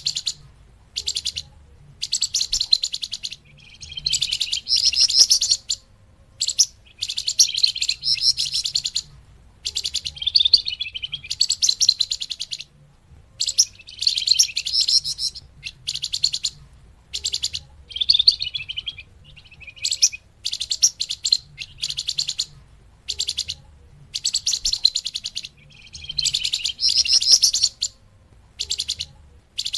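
Recorded song of the bird that Indonesian bird-keepers call flamboyan, played as a lure (pikat) call: high, rapid chattering and trilling phrases of one to two seconds each, repeated with short pauses between them.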